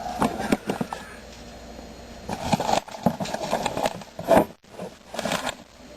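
Items being handled in a kitchen cabinet: a run of clicks, scrapes and rustles as packages and cans are moved, with a sharp knock about four seconds in.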